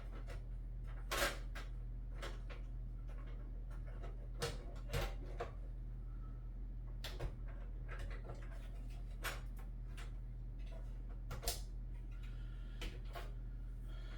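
Scattered clicks and light knocks of PC case parts and the graphics card being handled during assembly, about a dozen sharp taps spread irregularly, over a steady low electrical hum.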